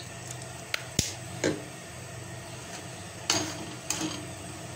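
A metal spoon clinks and knocks against an aluminium cooking pot about five times while thick chutney is stirred, over a steady low hum.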